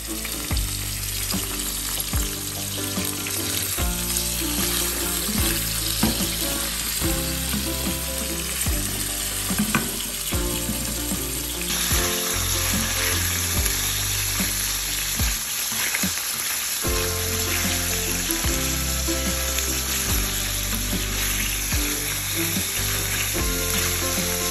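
Chicken pieces sizzling steadily as they fry in cooking oil in a stainless steel pan, with background music that has a stepping bass line.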